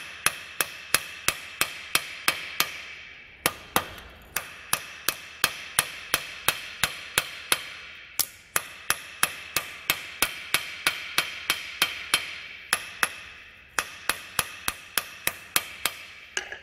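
Hammer blows on a red-hot steel knife blade lying on an anvil, struck in steady runs of about three a second, each with a bright ringing from the anvil; three short pauses break the runs. The smith is forging the blade back straight.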